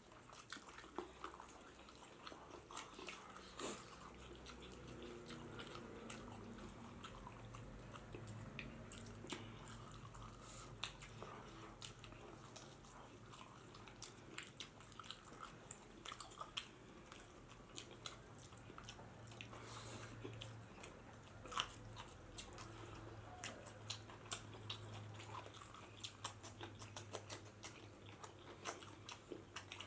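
A person chewing and biting a mouthful of pork and rice close to the microphone: quiet, irregular wet mouth clicks and smacks.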